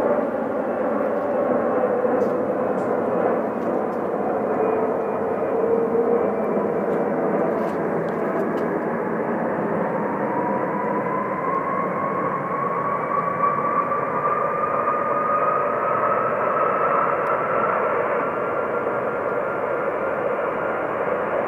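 Twin-engine jet airliner's turbofan engines running steadily as it taxis onto the runway: a continuous rushing noise with a low tone that sinks slightly in the first few seconds and a whining tone that slowly rises in pitch through the middle.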